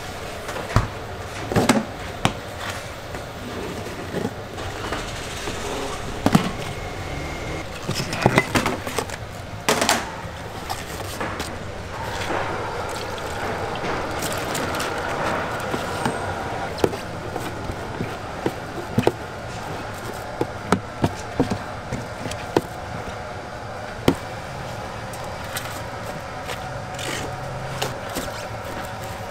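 Restaurant kitchen clatter: scattered sharp knocks and clinks of bowls and utensils, with a quick run of small clinks past the middle, over a steady background hum.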